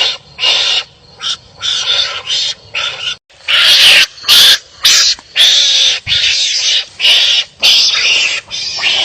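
Wild animals calling harshly at each other in quick, short, rasping barks, as when animals fight. The calls come one after another with brief gaps and get louder about a third of the way in.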